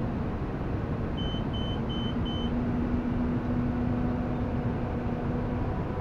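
John Deere tractor running steadily with a round baler behind it, heard from inside the cab. About a second in, four short high electronic beeps sound in quick succession, then a steady low hum lasts until near the end.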